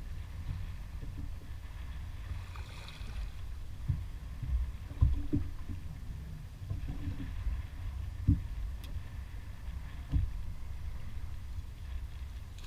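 Wind rumble and choppy lake water against the hull of a bass boat, with a handful of dull low thumps, the loudest about five seconds in.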